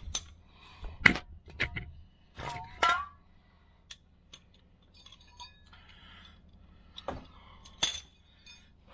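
Metal clinks and taps of tools and bolts against a steel bullbar mounting bracket: a handful of separate sharp clicks, with a brief ringing sound about two and a half seconds in.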